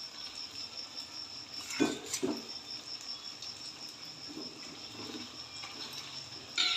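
An insect trilling steadily in a high, finely pulsing chirp, with two short knocks about two seconds in.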